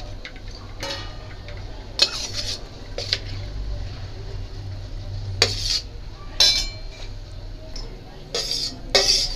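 A steel plate clanking and scraping against the rim of a stainless steel mixer-grinder jar as boiled greens are pushed off it into the jar: a handful of separate metallic clinks and scrapes.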